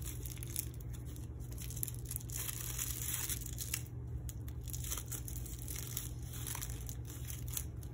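Thin plastic tipless piping bag crinkling and rustling in irregular bursts as it is twisted and tied in a knot by hand, over a steady low hum.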